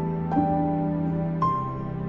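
Soft, slow background music: sustained notes in a gentle melody, with new notes starting about half a second in and again near a second and a half.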